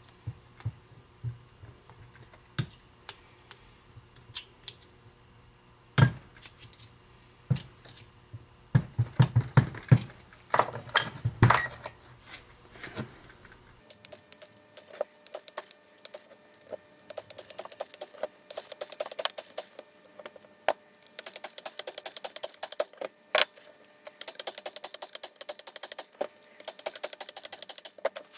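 Hammer and pin punch driving out the rivet pin that holds the crank handle to the gear of a Ford tractor leveling box. Scattered metal clinks and knocks build to a cluster of harder blows about a third of the way in. From about halfway there is a long run of quick, light metallic taps.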